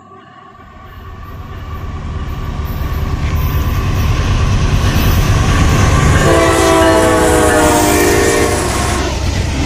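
Diesel freight locomotives approaching and passing close beneath, their engine rumble and the clatter of the train growing steadily louder. About six seconds in, a locomotive air horn sounds one long blast of nearly three seconds.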